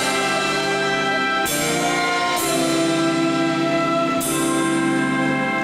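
Live band playing a slow instrumental introduction of held chords, the chord changing every second or two, leading into a ballad medley.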